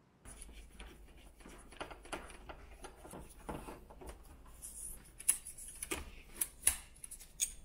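Gloved hands handling an old motorcycle indicator and its wire on a steel workbench: light rustling with scattered small clicks, and a few sharper taps and clicks in the second half.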